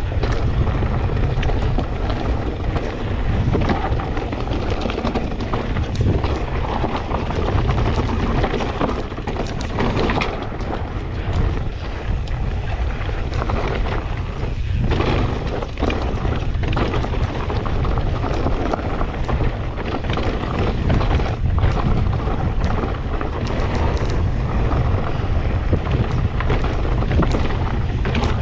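Wind buffeting a GoPro microphone during a fast mountain-bike descent, a steady low rumble. Tyres run over rough trail, with scattered knocks and rattles from the bike throughout.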